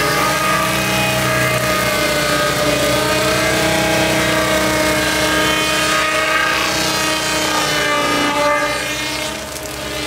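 Skid-steer rotating tree saw's circular blade spinning and cutting into the base of a tree trunk, over the ASV RT-120 track loader's engine running. The result is a loud, steady mechanical whine with several held tones that shift slightly in pitch, dipping a little in loudness near the end.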